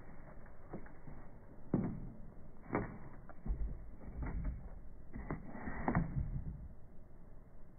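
Scattered knocks, clatters and scuffs as a Labrador puppy shifts its paws on a hollow clear plastic platform and jumps up. A few louder knocks stand out, with a brief low rumble a few seconds in.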